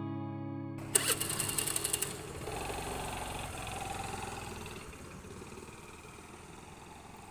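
Guitar music ends about a second in; then a Hero Pleasure scooter starts with a brief rattling burst, and its small engine runs and fades away as the scooter pulls off.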